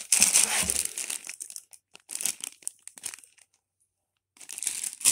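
Clear plastic bags of marker pens crinkling and rustling as they are handled and lifted out of a cardboard box, in several bursts with a brief pause shortly before the end.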